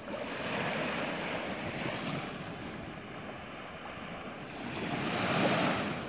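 Small sea waves breaking and washing up a sandy beach, surging twice: once just after the start and again, loudest, near the end.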